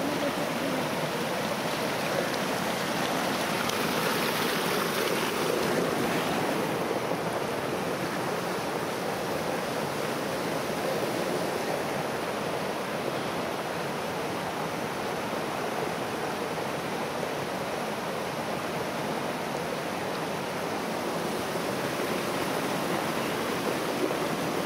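Shallow rocky creek running: a steady rush of water flowing over and between stones.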